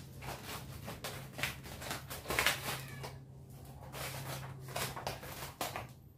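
Cotton candy machine with a brass spinner head, its motor humming steadily, with short hissing swishes over it at irregular moments; the hum stops shortly before the end.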